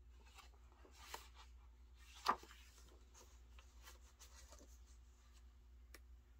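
Glossy photobook pages being turned by hand: soft paper rustles and slides, with one sharp papery snap about two seconds in as a page flips over.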